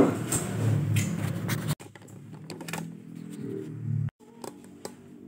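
Metal guitar-bridge press being handled on a workbench: a loud metallic clank at the start, then clattering and scraping for about a second and a half. After that, only faint scattered ticks and clicks.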